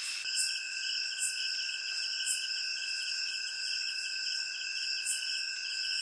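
A chorus of night insects: several steady high trills at different pitches, one of them pulsing fast and evenly, with now and then a brief sharper chirp above them.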